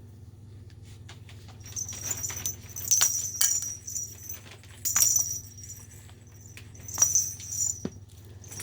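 A cat toy jingling in three bursts about two seconds apart as it is played with, with light taps between them.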